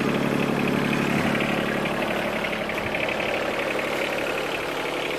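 Yanmar SC2450 sub-compact tractor's three-cylinder diesel engine running steadily.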